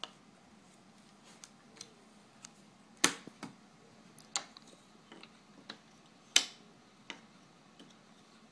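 Cardboard jigsaw puzzle pieces tapping and clicking on a wooden tabletop as they are handled and pressed into place: scattered light clicks, with two sharper knocks about three and six seconds in.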